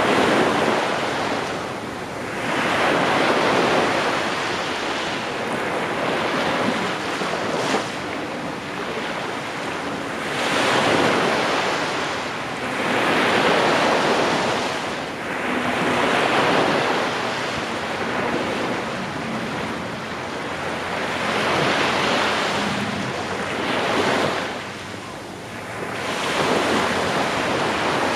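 Small sea waves breaking and washing up a sandy beach, the surf swelling and fading every few seconds. Wind buffets the microphone throughout.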